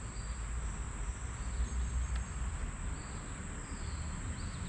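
Steady high-pitched trilling of insects, a cricket-like chorus, with a low rumble underneath.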